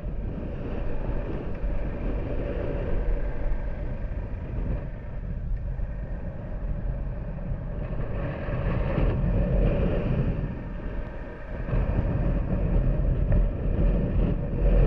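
Motorcycle engine running under way, with a brief drop in the engine sound about eleven seconds in before it picks up again.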